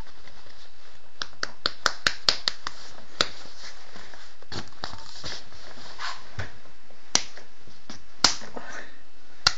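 Sharp clicks over a steady hiss: a quick run of about seven, some four a second, starting about a second in, then single clicks a second or more apart, the loudest near the end.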